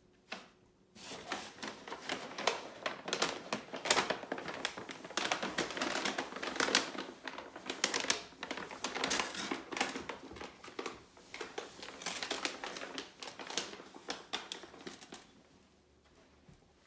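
Paper shopping bag crinkling and rustling as a cat climbs into it and shifts about inside, a dense run of sharp crackles that stops near the end.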